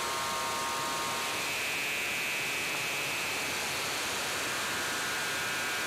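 Live electronic soundscape: a steady hiss of noise with thin sustained tones above it, stepping higher about a second and a half in and lower again in the second half.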